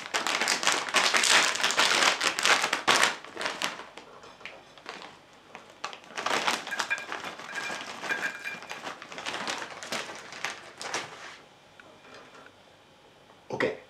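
Plastic snack bag crinkling loudly as it is torn open. After a short pause it rustles and crackles again as the corn puffs are shaken out of it onto a plate.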